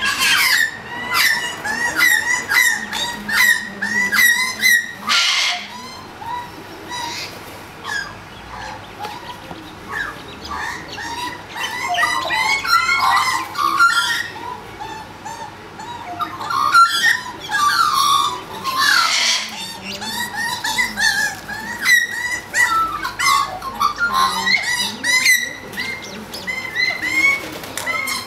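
Australian magpies calling during a territorial fight on the ground: a stream of short, sharp calls repeated several times a second, with warbled chirping through the middle and harsh screeching bursts about five seconds in and again near nineteen seconds.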